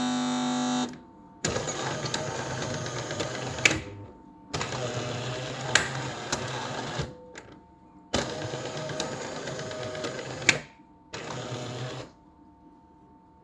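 Jura E8 fully automatic coffee machine's mechanism running in four short bursts of one to three seconds each, with a few sharp clicks. This is the squeaking noise the machine has developed.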